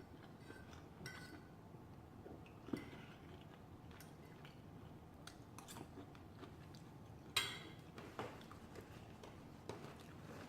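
Quiet eating sounds: faint chewing with a handful of light clicks and taps of cutlery on a plate, the loudest about seven seconds in.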